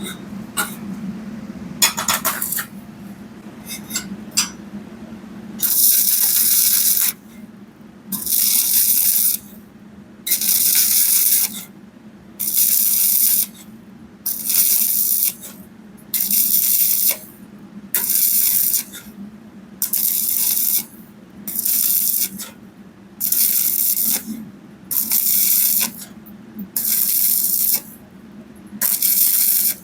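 Stick (shielded metal arc) welding with a 2.0 mm electrode on 2.35 mm round pipe at 80–90 A: after a few metal clicks and taps, the arc crackles in short runs of about a second and a half, struck and broken again roughly every two seconds, about a dozen times.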